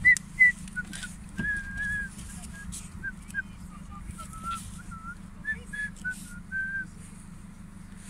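A loose run of clear whistled notes, two loud short ones at the start, then shorter notes and a couple of held ones, over a steady low hum.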